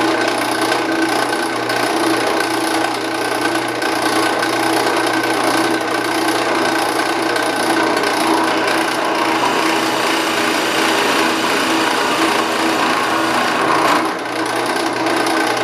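Drill press spinning a Forstner bit as it bores a shallow countersink into particleboard: a steady motor hum under the scraping of the bit cutting wood chips, easing briefly about fourteen seconds in.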